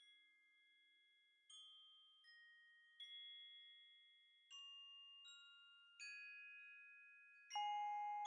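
Quiet music of slow, chime-like mallet notes, like a glockenspiel or music box. The notes are struck singly about every second, ring on, and build in loudness, with the loudest near the end.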